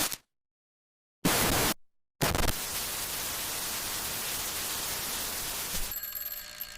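Electronic static hiss used as a glitch sound effect. It cuts out to silence, comes back as a short burst about a second in, drops out again, then hisses steadily from about two seconds in and grows fainter near the end.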